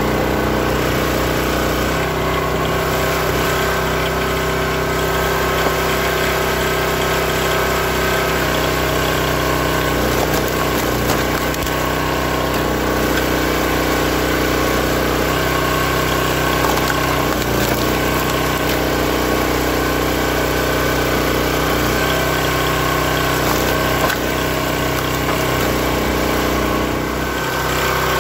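The small gasoline engine of a hydraulic log splitter runs steadily, driving the splitter's hydraulic pump, with slight shifts in its note as the ram works.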